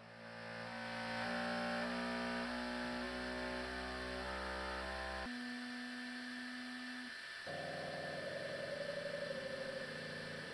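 Bambu Lab X1-Carbon's print head being shaken by its motors during the vibration-resonance (input shaping) calibration, humming at a series of fixed pitches that change in steps. A low hum and a run of stepping tones stop about five seconds in, and one steady tone holds for about two seconds. After a short break a second, higher series starts and steps downward.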